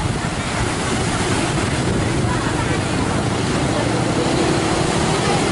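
Strong wind blowing across the microphone over rough, choppy sea.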